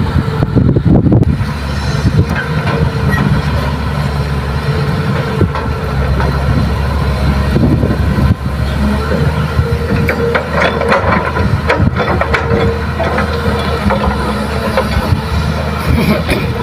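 Diesel engines of a Kobelco hydraulic excavator and a Mitsubishi Fuso dump truck running steadily as the excavator works its boom and bucket. About two-thirds of the way through comes a spell of clattering as soil and clods are dumped from the bucket into the truck bed.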